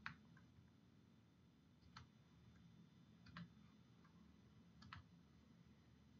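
Near silence: room tone with a few faint clicks, some in quick pairs, about every second and a half.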